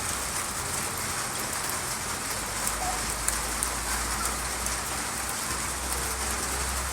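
Rain falling steadily on a hard surface, with sharper drops ticking now and then.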